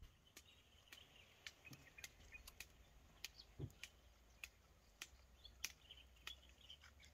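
Faint outdoor woodland ambience: small birds chirping in short high calls, with irregular sharp clicks about twice a second.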